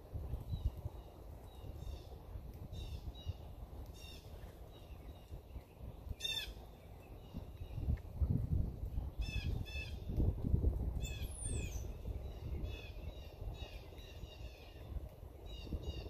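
Backyard songbirds calling: many short chirps repeated throughout, with one high falling whistle about eleven seconds in. A low rumble runs underneath and is loudest in the middle.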